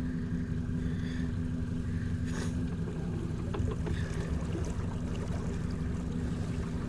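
Boat motor running steadily at low trolling speed, an even droning hum.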